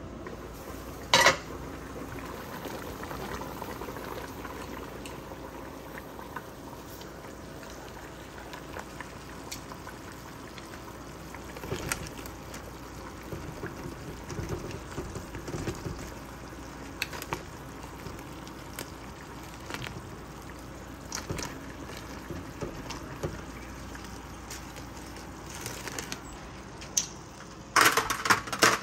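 Crabs boiling in a large enamel stockpot: a steady bubbling hiss, with scattered light clinks. A sharp clank about a second in as the pot lid is lifted, and a few loud knocks near the end.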